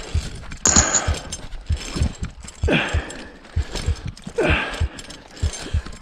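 Edited intro soundtrack: low thuds two or three times a second, with a whoosh that falls in pitch about every two seconds.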